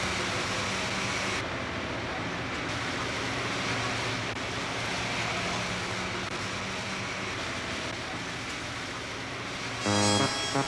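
Steady drone of a bus engine and road noise heard from inside the cabin. Near the end, music with brass instruments comes in.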